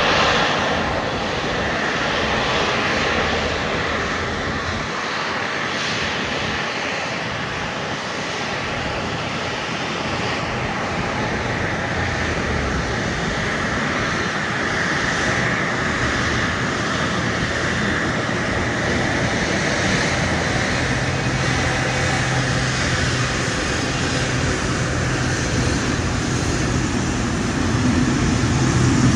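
Boeing 777 jet engines running steadily at taxi power: a constant rushing noise with a high whine over it, growing a little louder near the end.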